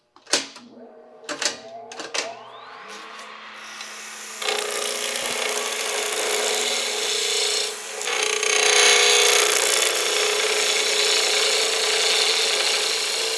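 Wood lathe running, its motor hum rising in pitch over the first few seconds, then a skew chisel cutting the spinning chair rung: a steady, loud hiss of wood shavings over the lathe's hum from about four seconds in, easing briefly near eight seconds.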